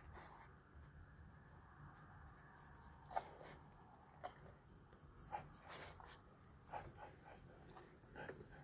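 A dog eating dry cat food kibble off the floor: faint, scattered crunches and clicks, a handful of them in the second half.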